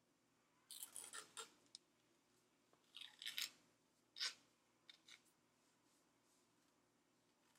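White athletic tape being pulled off the roll and torn by hand, in several short scratchy rips spread over the first five seconds. The tape is a low-quality one that does not tear cleanly.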